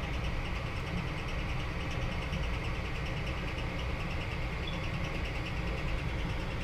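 Steady low hum and whir of the freshly powered-on 3D printer's cooling fans and power supply, running evenly.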